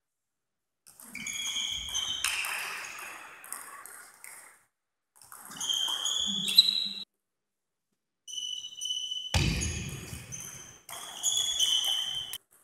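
Table tennis rally: the ball clicking off the bats and the table in quick exchanges, with short high squeaks from shoes on the hall floor. There is a heavy thud about halfway through.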